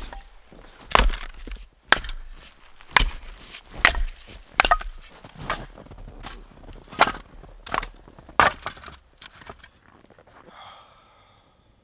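A series of about a dozen sharp cracking knocks, roughly one a second, stopping about nine and a half seconds in.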